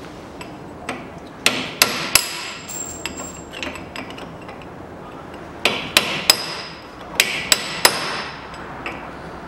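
Hammer striking a chisel set against the old wheel bearing's inner race on a Kia Sportage front hub held in a vise, driving the race off the hub. Three groups of three sharp metallic blows, each ringing briefly.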